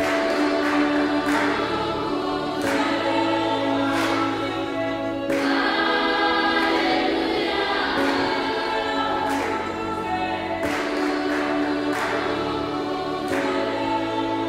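Background music: choir-like voices singing held chords over a soft, regular beat that falls a little more than a second apart.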